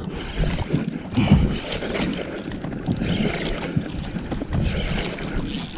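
Water sloshing against a small outrigger fishing boat's hull, with wind buffeting the microphone and a few short handling knocks.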